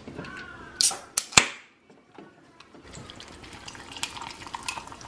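A can of Coke Zero Cherry cracked open by its pull tab: a short hiss and two sharp clicks about a second in. From about three seconds in the fizzy soda is poured over ice into a tumbler, hissing with small clicks of ice.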